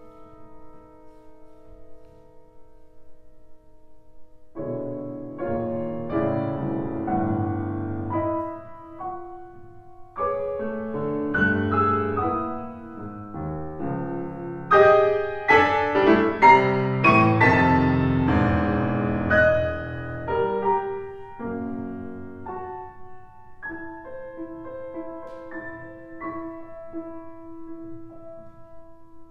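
Solo grand piano. A held chord dies away, then the playing resumes about four seconds in and builds to a loud, dense passage with heavy low chords in the middle. It then thins out to quieter, sparse notes near the end.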